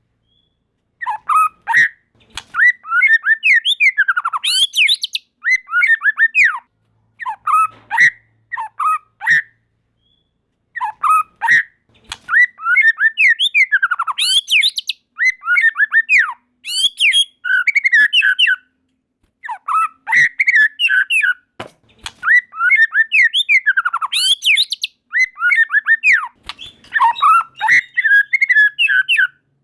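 White-rumped shama (murai batu) singing: bursts of fast, varied notes sweeping up and down in pitch, broken by short pauses.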